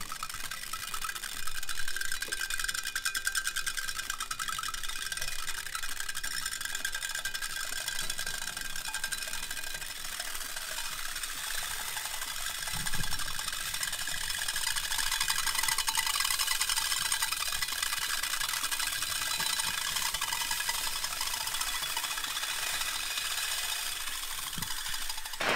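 Orbeez water beads sizzling on a hot frying pan: a dense, rapid crackle with a hiss as the water cooks off them. It gets a little fuller about halfway through, as more beads sit in the pan.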